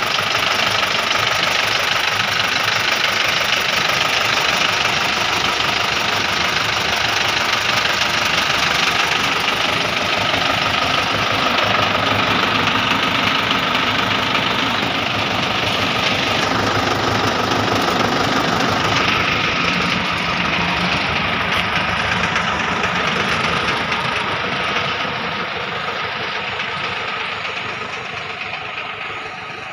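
Engine of a machine van running steadily, its sound fading over the last few seconds.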